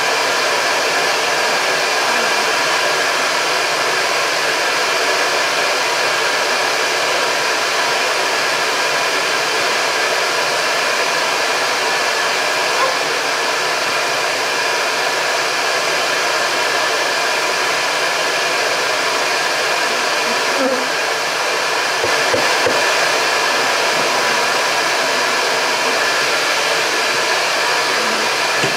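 Bee vacuum running steadily as it sucks honey bees out of a colony, a constant motor noise with a steady hum. A few light knocks come about two-thirds of the way through.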